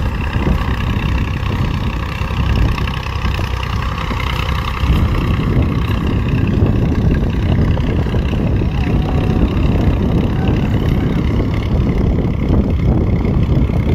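Farm tractor's diesel engine running steadily under load as it pulls a tine cultivator through ploughed soil.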